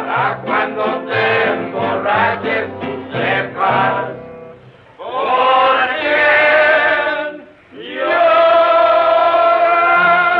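Several men singing a Mexican ranchera together, backed by a mariachi band with plucked bass notes. A quick run of short sung phrases gives way to two long held notes, with a brief break between them.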